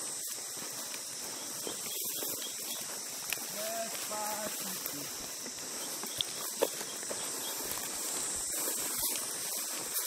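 Footsteps swishing through tall dry grass along a hiking path, with a few sharp snaps a little past halfway, over a steady high-pitched buzz of insects.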